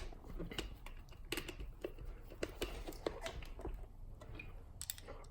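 Scattered small clicks and taps of hands working on a radio-controlled truck's plastic parts and small hardware, at an irregular pace.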